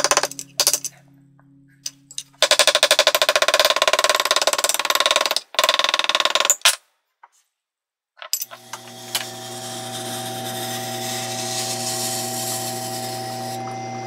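Cobbler's hammer tapping rapidly on a braided leather-lace knife handle on a granite slab, pounding the lace to set it. After a short break, the electric motor of a wheeled knife-sharpening machine starts about eight seconds in and runs with a steady hum.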